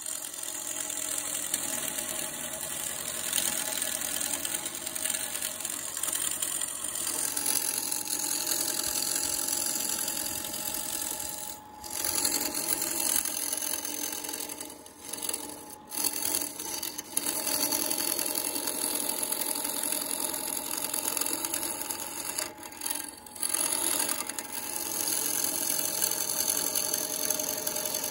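Wood lathe running while a hand-held turning tool cuts into a spinning wood-and-epoxy blank, a steady hissing scrape of cutting over the motor hum. The cutting sound drops away briefly four or five times as the tool comes off the wood.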